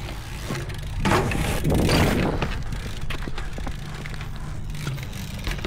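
BMX bike tyres rolling over a concrete skatepark surface, a steady rumble with a louder rushing stretch between about one and two and a half seconds in, as the rider passes close.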